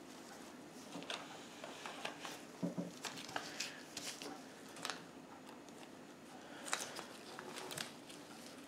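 Faint, scattered light clicks and handling noise from gloved hands working a 3D-printer resin tank frame and its new FEP film.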